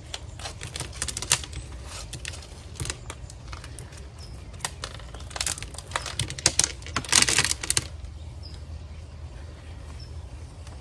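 Small gravel and potting soil tipped out of a pot, rattling and clicking onto a plastic tray in a run of small clicks, with the densest, loudest clatter about seven seconds in.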